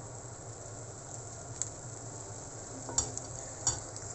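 Sliced squid boiling down in its own broth in a frying pan on high heat: a steady bubbling hiss, stirred with a spatula, with a few sharp clicks of the spatula against the pan around three seconds in.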